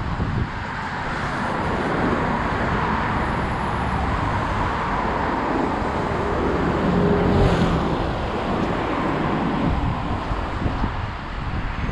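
Street traffic with wind rushing over the microphone, growing louder a little past the middle as a vehicle goes by.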